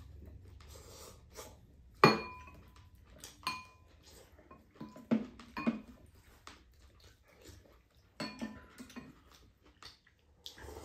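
Spoons and chopsticks clinking and scraping against ceramic bowls during a meal. A sharp ringing clink about two seconds in is the loudest, with more clinks around three and a half and eight seconds and softer knocks of bowls and utensils between.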